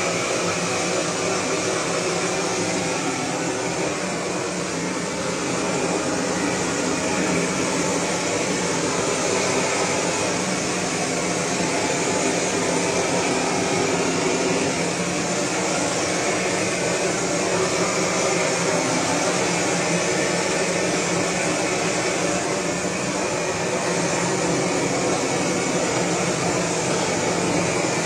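Handheld gas torch on a hose burning with a steady, unbroken rushing sound.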